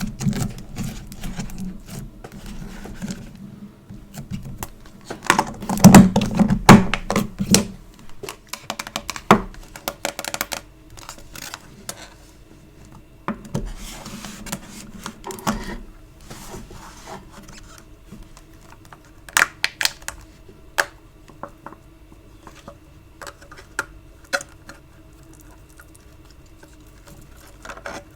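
Hands squeezing and pulling sticky store-bought foam clay and slime, making irregular sticky crackles, clicks and small pops. The densest, loudest run comes about five to eight seconds in.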